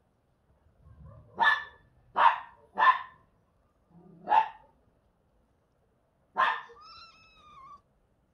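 Street kitten meowing loudly five times in short, harsh calls. The last call trails into a longer, slightly falling mew.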